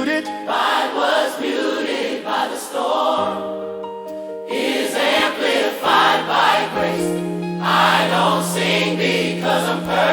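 Worship song with choir voices singing wordless sustained phrases over held chords.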